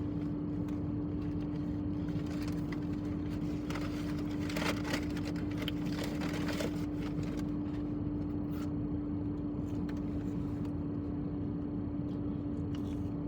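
A steady mechanical hum with one constant tone, with a few faint clicks and rustles about four to seven seconds in.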